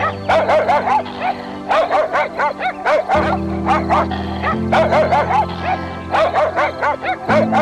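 An animal yipping in fast runs of short high calls, several a second with brief pauses between runs, over background music with sustained low chords.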